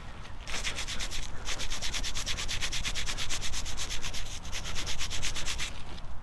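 Fast, even rubbing or scraping, about ten strokes a second, as dirt is rubbed off a small dug-up metal object to read its marking. It starts about half a second in, pauses briefly, and stops shortly before the end.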